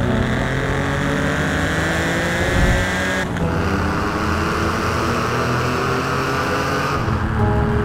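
Porsche 993 GT2's twin-turbo air-cooled flat-six pulling hard under acceleration, its note climbing steadily, with a gear change about three seconds in, after which it climbs again.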